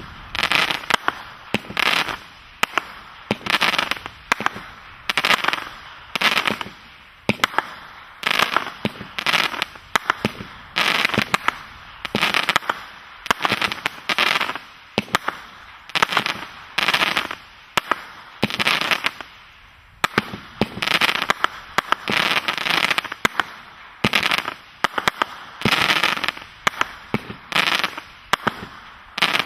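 Vulcan 'Jack Frost' fireworks cake firing shot after shot, about one a second; each is a sharp report followed by a short spray of crackling.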